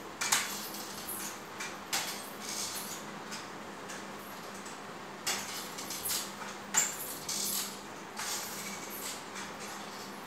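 Metal forearm crutches tapping on a tiled floor as a person walks on them, a series of irregular sharp taps and knocks, loudest about a third of a second in and again near seven seconds.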